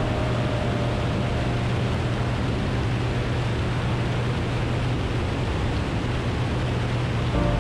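Cessna 185 floatplane in cruise flight: steady engine and propeller drone under a constant rush of wind.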